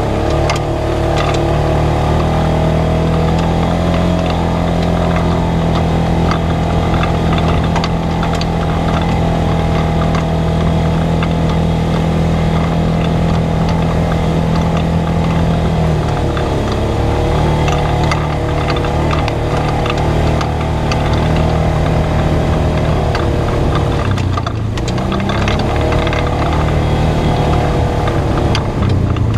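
Polaris RZR 570 side-by-side's single-cylinder engine running while driving a bumpy dirt trail, with occasional knocks and rattles from the machine. The engine note shifts about halfway through and dips briefly near the end.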